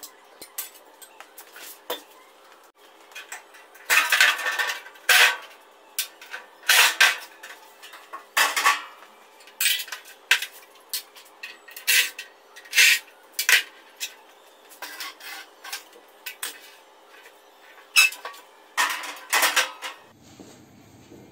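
Metal parts of an air-conditioning unit being pulled apart by hand: irregular sharp metallic clanks and rattles of sheet metal and coil, a dozen or more. They are loudest about four seconds in and again near the end.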